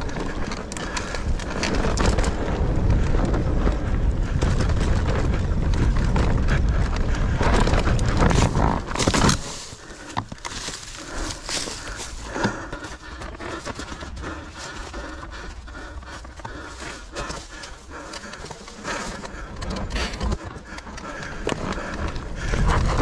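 Nukeproof Mega 290 mountain bike ridden down a forest trail: a loud low rumble of speed and wind for about the first nine seconds, then it drops suddenly, leaving a run of clicks, knocks and rattles from the tyres, chain and frame over the rough ground.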